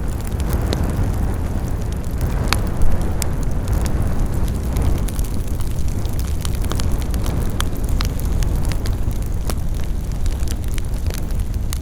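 Campfire burning: a steady low rush of flames with frequent sharp crackles and pops, one louder pop about three seconds in.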